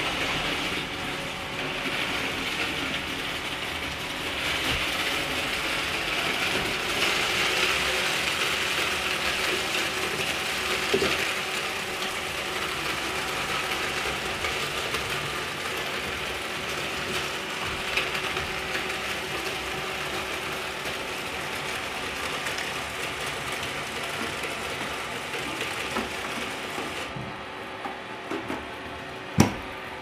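Roomba i8+ robot vacuum running steadily over scattered Rice Krispies cereal, a dense mechanical clatter as it picks up the dry cereal. The hiss fades near the end, and a single sharp knock comes just before the end.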